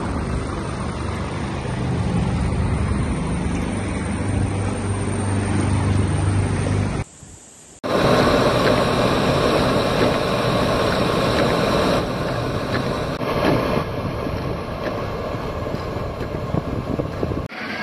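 Steady engine noise with a low hum, cut off by a short gap about seven seconds in. After the gap comes the engine and tyre noise of a vehicle driving on a wet street, heard from inside it.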